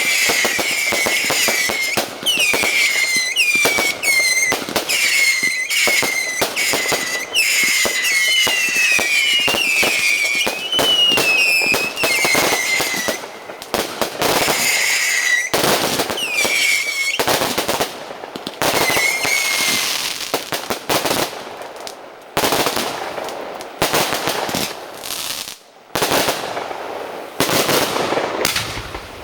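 Fireworks display: many whistling shells whose whistles fall in pitch, over rapid cracking bangs. After about twenty seconds the whistles stop and dense crackling explosions go on.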